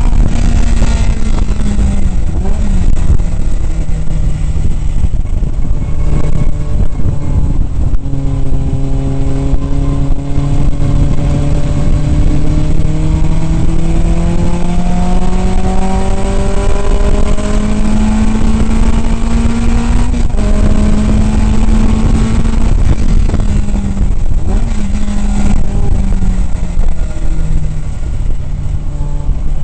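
1967 Datsun 2000 roadster's 2.0-litre four-cylinder engine running hard from inside the open cockpit. The revs dip about two seconds in, climb steadily for about twelve seconds, dip briefly around twenty seconds, and drop near the end. Heavy wind and road noise run underneath.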